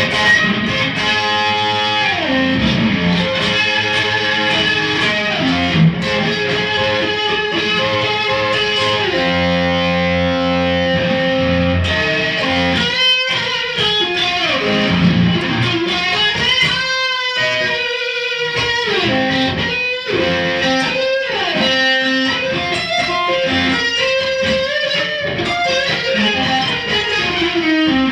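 Electric guitar being played: held notes with several slides in pitch, mostly downward.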